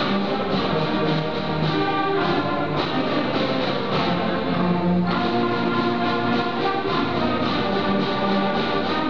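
Sixth-grade school concert band playing live, brass and woodwinds holding chords that shift every second or two, with low brass underneath.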